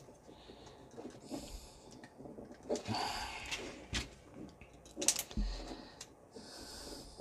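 Hard plastic action-figure parts being handled and fitted together, with a few sharp clicks and knocks, the loudest about five seconds in, and soft breaths in between.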